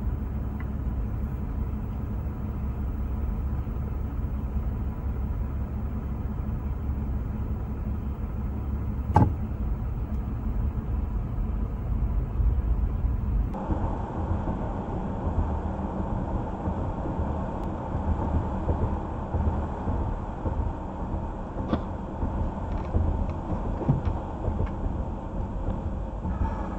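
Steady low rumble of a car's engine and road noise heard from inside the cabin, with a single sharp click about nine seconds in. Partway through, the sound cuts to another vehicle's steady cabin road noise, recorded by a dashcam.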